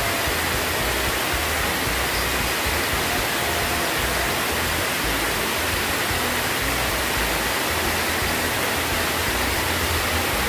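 Water pouring over a concrete dam weir into the pool below, a steady rushing noise with no change.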